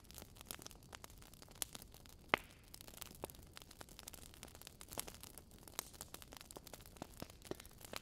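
Fire crackling: irregular sharp pops and snaps over a faint hiss, with one louder pop a little past two seconds in.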